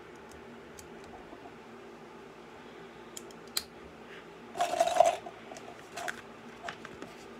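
Small plastic LEGO pieces clicking and clattering as they are handled and picked out, with a short burst of rattling about four and a half seconds in and single clicks before and after. A low steady hum runs underneath.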